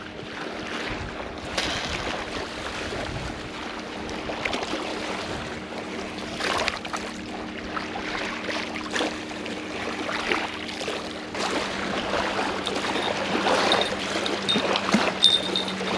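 Wind noise on the action camera's microphone and small waves lapping at the riverbank, broken by short knocks and rustles as the fishing rod is handled. A steady low hum runs underneath and thins out about two-thirds of the way through.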